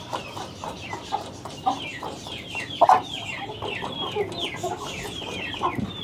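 Caged Aseel chickens clucking while feeding, with a steady run of short, high, falling chirps throughout and a louder note near the middle.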